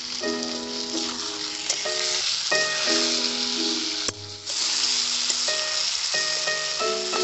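Potato and tomato pieces sizzling in hot oil in a kadai as a flat metal spatula stirs them, with background music over it. The sizzle drops out briefly a little after four seconds in.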